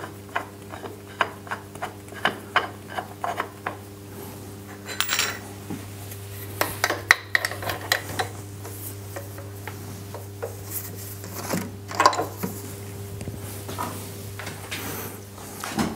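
Metal clicking and clinking as the drawbar of an Abene VHF-3 milling machine is turned to pull a horizontal milling arbor into the spindle taper: a quick run of small clicks over the first few seconds, then scattered louder clinks. A steady low hum runs underneath.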